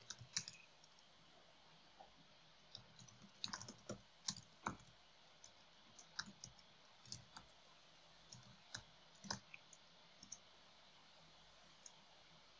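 Faint keystrokes on a computer keyboard: irregular clicks in small clusters as a command is typed, thinning out near the end.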